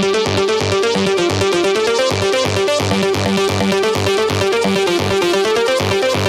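Electronic dance music with a steady, fast bass beat under a repeating synthesizer pattern.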